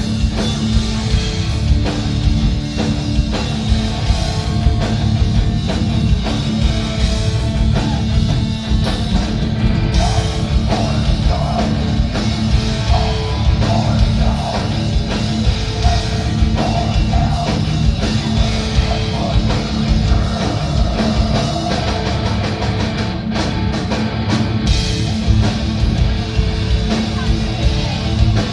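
Heavy metal band playing live, with a full drum kit, loud and steady.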